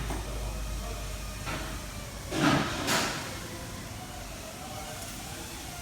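Hand work on the hood: a short scuff about two and a half seconds in, then a single sharp click, over a low steady hum.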